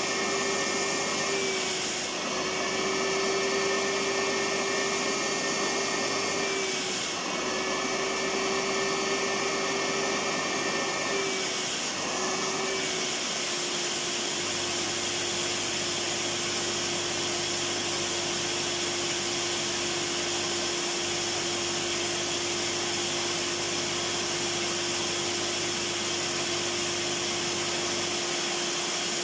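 Electric vacuum cleaner running steadily, a motor rush with a high whine. In the first half it dips briefly three times, then runs unbroken.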